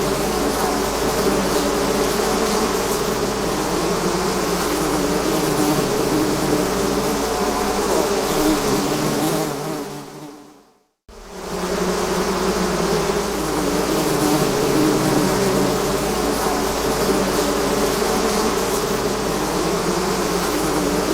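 A swarm of bees buzzing: a dense, steady, many-voiced hum. About halfway through, the hum fades to silence over a second or two, then cuts straight back in at full strength.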